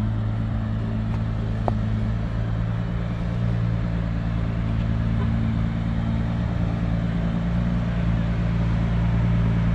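Car engine idling with a steady low drone, growing slightly louder toward the end.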